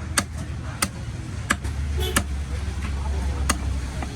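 Knife chopping through fish, sharp strokes coming about every two-thirds of a second with a gap near the end, over a steady low rumble of traffic.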